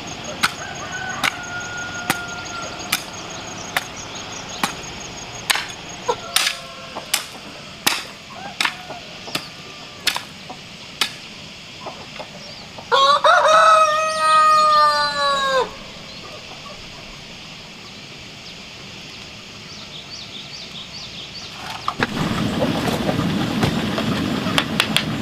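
A rooster crows once, loud, for about three seconds in the middle. Before it, a hand hoe strikes the ground in a steady rhythm, roughly one knock every three quarters of a second. Near the end a steady hiss rises, fitting the wood fire under a steaming pot.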